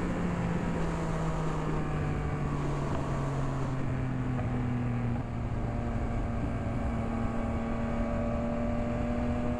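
Motorcycle engine running under way, heard from a helmet-mounted camera with steady wind rush. The engine note falls slowly for the first few seconds, dips briefly about five seconds in, then climbs gently.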